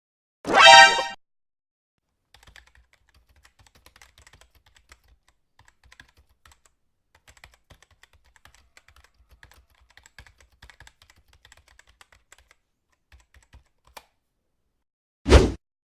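Computer keyboard typing sound effect: faint, irregular keystrokes clattering for about eleven seconds. It is preceded by a short, loud pitched sound just after the start, and a loud whoosh begins just before the end.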